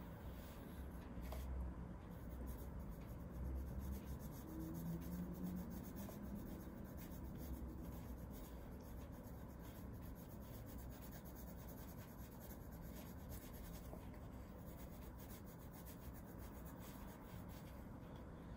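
Graphite pencil scratching across paper in many short, irregular sketching strokes, quiet, over a low rumble.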